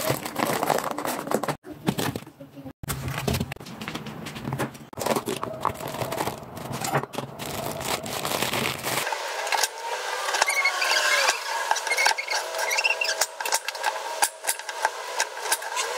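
Parchment paper crinkling and rustling, with knocks and scrapes, as a wrapped block is handled in a plastic tub and unwrapped on a wooden board; later, a knife slicing through the block on the bamboo board, with small clicks and scrapes.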